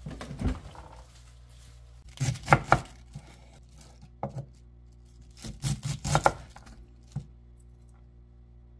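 Knife chopping vegetables on a cutting board in short bursts of a few quick strokes with pauses between, over a low steady hum.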